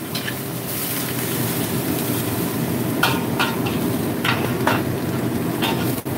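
Metal spatula scraping and clanking against a wok as celery and cuttlefish are stir-fried, with several sharp strokes in the second half, over a steady frying hiss.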